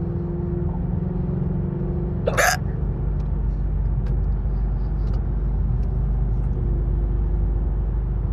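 A woman hiccups once, sharply, a little over two seconds in, over the steady low rumble of a car driving.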